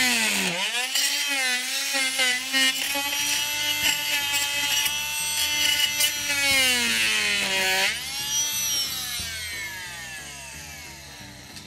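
Fein MultiMaster oscillating multi-tool running as it trims the light's mounting block, its motor whine sagging and wavering as the blade is pressed into the cut. About eight seconds in it picks up again, then winds down, the whine falling in pitch and fading.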